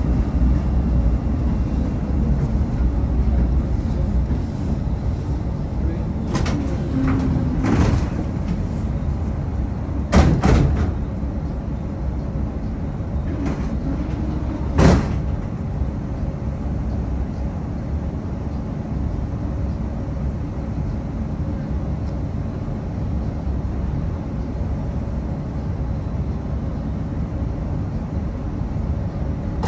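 Steady low hum inside a tram standing at a stop, with a few sharp knocks and thumps from about six to fifteen seconds in, the loudest about ten and fifteen seconds in, as the tram's sliding passenger doors work.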